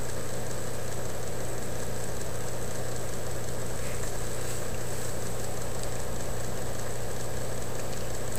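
A steady, unchanging low hum with a hiss over it, and no clicks or knocks.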